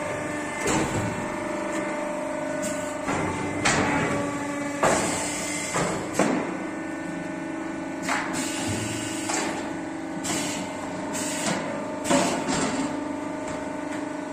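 Hydraulic silage corn packing machine running: a steady machine hum from its motors and pump, with repeated metallic clanks and short hissing bursts as it cycles through packing bales.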